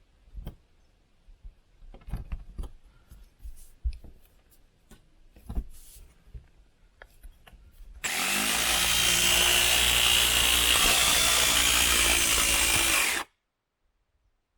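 Scattered light clicks and knocks of handling for the first eight seconds, then an electric jigsaw runs loud and steady for about five seconds, cutting into the van's sheet-metal roof through a drilled pilot hole, and stops abruptly.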